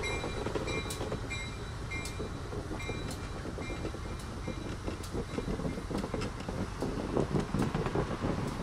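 Old P70 passenger car rolling slowly along the rails: a steady low rumble from its trucks, with knocks and clicks about once a second. A short high ringing tone repeats during the first few seconds.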